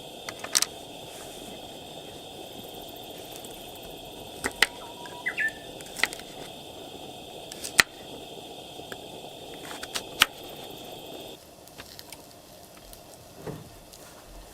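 Campfire crackling, with a handful of sharp, loud pops a second or two apart over a steady high-pitched hum and a low rushing background. About eleven seconds in, the steady background drops away suddenly.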